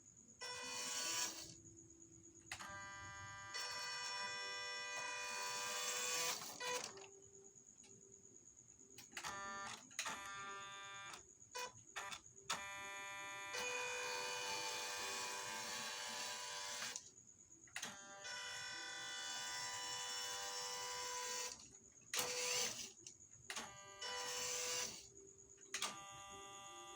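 The small electric motor and gears of an MN45 1:12 RC crawler running in bursts of a few seconds, stopping and starting repeatedly, with a steady whine and short rising spin-ups between runs.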